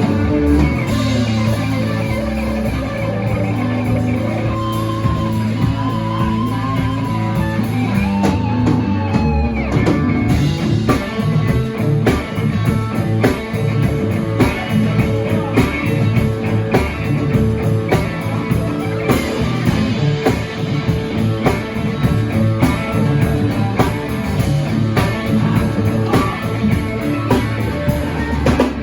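Live rock band playing: electric guitar over bass, with a drum kit keeping a steady beat that becomes busier about ten seconds in.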